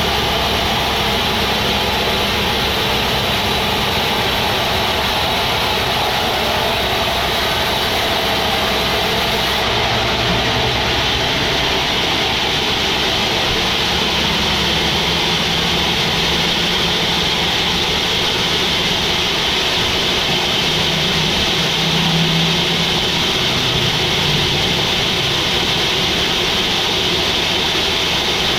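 Band sawmill running steadily: a continuous machine noise with a hiss and a low hum that shifts a little in pitch.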